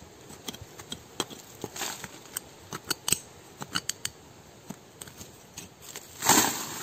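A small hand tool digging and scraping in dry soil and roots at the base of a small tree, with scattered sharp clicks and scrapes as the blade strikes, and a longer, louder scrape about six seconds in.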